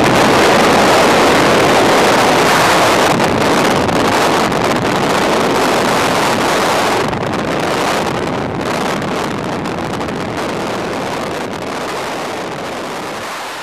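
Freefall wind rushing over a helmet camera's microphone: a loud, steady rush of wind noise that grows gradually quieter through the second half.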